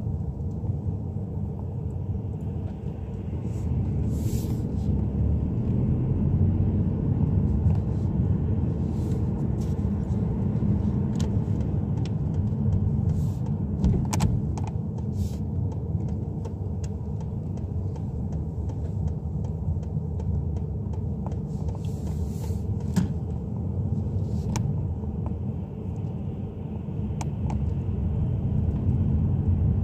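Low, steady rumble of a car's engine and tyres heard from inside the cabin while driving, with scattered faint clicks and taps.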